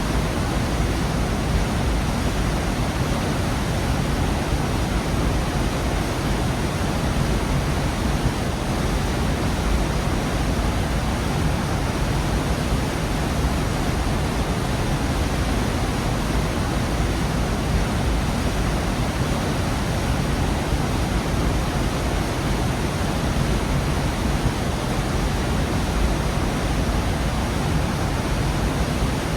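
Waterfall in a gorge: water crashing and rushing in a steady, unbroken roar, heaviest in the low end.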